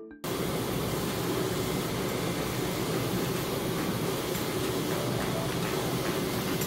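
Large-format inkjet printer running: a steady whirring noise from its fans and moving print-head carriage, with no distinct rhythm.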